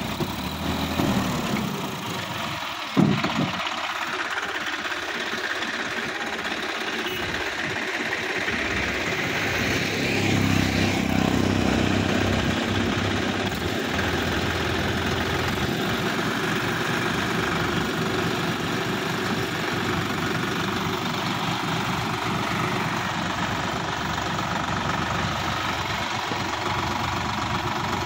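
Sonalika DI-50 RX tractor's diesel engine running under load as the tractor climbs onto the road with its front wheels lifting. There is a single sharp knock about three seconds in, and the engine gets louder for a couple of seconds about ten seconds in.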